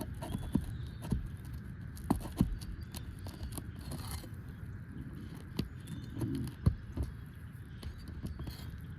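Scattered light clicks, taps and scrapes of hand tools working a nail loose from an asphalt shingle, with a strong knock about two seconds in and another near seven seconds.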